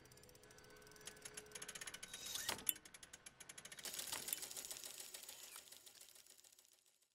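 Clockwork drawing automaton's mechanism ticking and whirring: a dense run of rapid clicks that swells, with one sharp louder click about two and a half seconds in, then fades away near the end.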